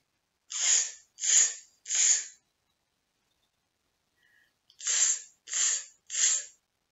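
A woman's voice making the hissing 'tss' sound of the Maltese letter z, six times in two sets of three, each a short hiss of about half a second with a pause of a couple of seconds between the sets.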